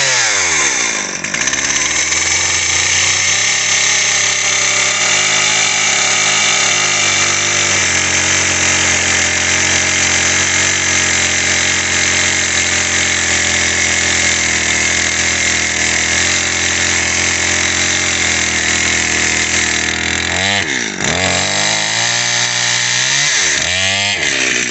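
Stihl two-stroke chainsaw running at full throttle, cutting steadily through a knotty ash log. Its note dips and climbs right at the start, then again several times in the last few seconds as the throttle is let off and opened again.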